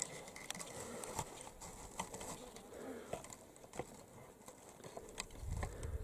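Flies buzzing around, with scattered small clicks and rustles, and a brief low rumble near the end.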